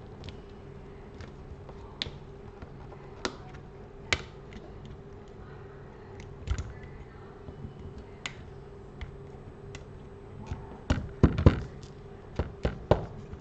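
Scattered sharp clicks and taps of small repair tools and plastic phone parts being handled on a work desk while the phone is opened, with a quicker run of louder clicks near the end. A faint steady hum lies underneath.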